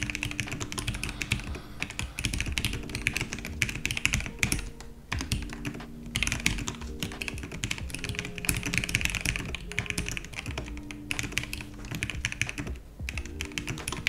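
Fast typing on a custom mechanical keyboard with lubed and filmed Gateron Yellow linear switches: a dense, even run of keystrokes with a couple of brief pauses.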